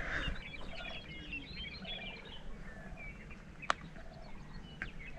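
Several kinds of wild birds chirping and calling: a flurry of quick high chirps over the first two seconds, with a lower call repeated about once a second. A single sharp click sounds a little past halfway.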